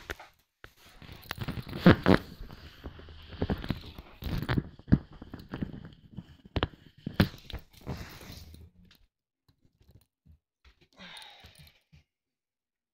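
Handling noise of an inflated vinyl whale toy rubbing and bumping against the recording device: irregular scrapes, squeaks and knocks that die away after about eight and a half seconds, followed by a few faint ticks and a short rustle.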